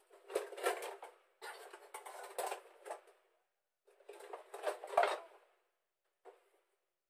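Kitchenware being rummaged through and lifted down from a high shelf: plastic containers and pots knocking and clattering together, with rustling, in three irregular bursts and a last short knock near the end.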